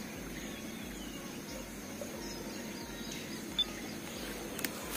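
Steady outdoor background noise with a low rumble and a thin steady high tone, with faint scattered bird chirps and a short click about three and a half seconds in.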